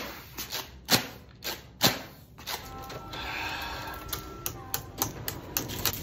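Plastic fork tines tapping and clicking against a photocopier's touchscreen: several sharp taps about a second apart, then scattered smaller clicks. Through the middle there is a steadier hum with a few faint held tones.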